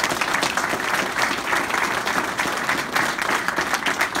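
A crowd applauding: many hands clapping in a steady, dense patter.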